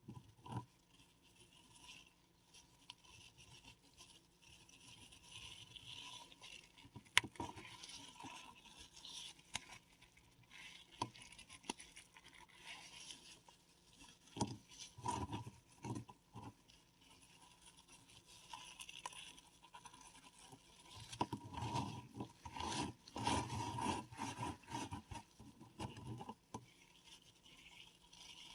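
Paradichlorobenzene mothball tablets being crushed and crumbled by hand: irregular scraping and crunching as the tablets break up into powder, with a sharp snap about seven seconds in and denser crunching around fifteen seconds and again from about twenty-one to twenty-six seconds.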